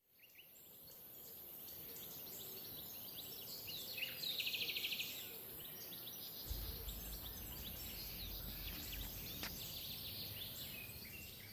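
Birds chirping and calling, with a rapid trill about four seconds in. A low rumble joins about halfway through.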